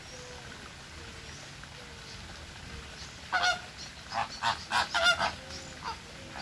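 Flamingos honking: a quick run of about six loud, goose-like honks over two seconds, starting about halfway in, then a couple of fainter calls.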